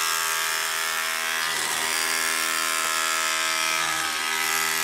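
Soda Can Robug toy's small electric motor spinning an off-centre quarter-circle weight, giving a steady, fairly loud electric buzz as it shakes the toy.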